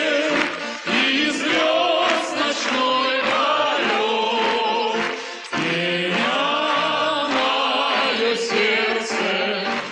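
A hall full of voices, audience and stage singers together, singing a song in chorus. There is a short break between phrases about halfway through.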